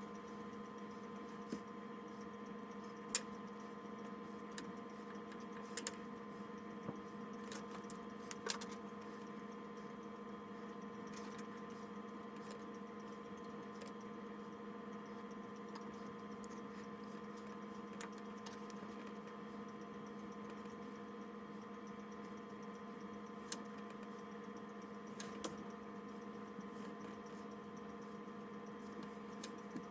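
Steady low electrical hum with a few light clicks and taps scattered through, mostly in the first third and again near the end.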